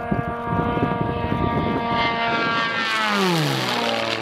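Propeller airplane making a high-speed low pass: its engine whine grows louder as it approaches, then drops sharply in pitch as it goes past, about three seconds in.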